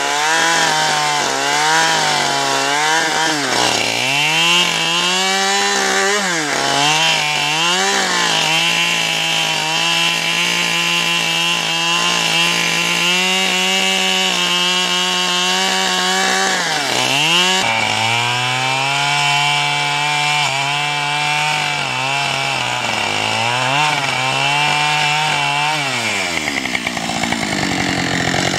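Husqvarna two-stroke chainsaw running at full throttle while ripping lengthwise along a log. The engine pitch sags and recovers several times as the chain loads up in the cut, then falls away near the end as the throttle is let off.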